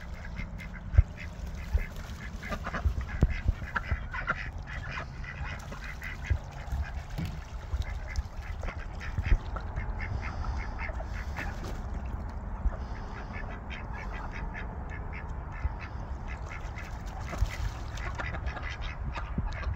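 Ducks quacking repeatedly in short calls, over a steady low rumble, with a couple of sharp knocks about a second in.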